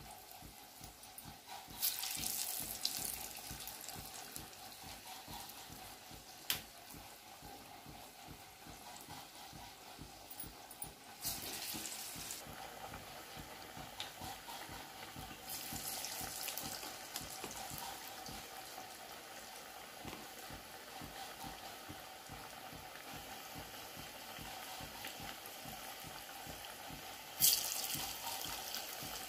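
Chana and urad dal vadas deep-frying in hot oil in a pan: a steady bubbling sizzle, with louder spells of crackle about 2 s, 11 s, 15 to 17 s and 27 s in.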